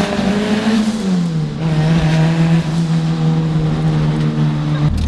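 Turbocharged Honda Civic's four-cylinder engine running at steady revs, its pitch rising a little about half a second in, then dropping back and holding steady until it changes abruptly near the end.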